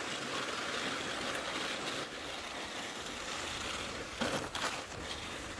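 Cross-country skis and pulk sled runners gliding with a steady hiss over crusted snow, as a team of two dogs tows the skier. About four seconds in there is a brief louder scrape.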